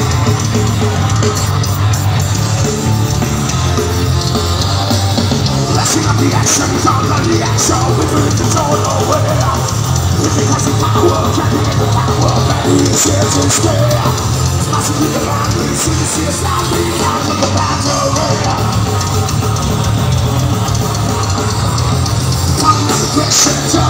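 Live heavy metal band playing loudly: electric guitars over a drum kit.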